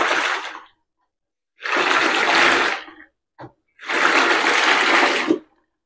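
Water sloshing as a spin mop head is worked around in the dirty water of the bucket's wash compartment, three times, each lasting about a second.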